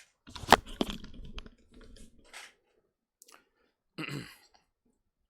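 Two sharp knocks about half a second in, with a low rumble and rustling for about two seconds, then a brief knock near the end: handling and movement noise close to the microphone.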